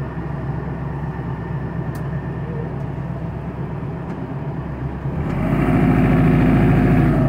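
A 60 hp Montana 4x4 tractor's diesel engine running steadily, heard from inside the enclosed cab while the loader bucket plows through snow drifts. About five seconds in, the engine gets louder and stays so.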